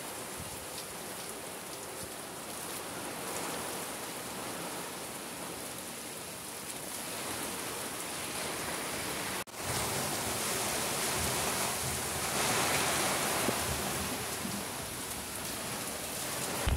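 Heavy tropical downpour pouring onto a sailboat's deck as a steady hiss. There is a brief dropout about halfway through, after which the rain is a little louder.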